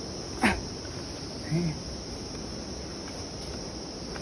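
Steady insect chirring in the background, with one short sharp call with a falling pitch about half a second in and a faint brief sound around a second and a half in.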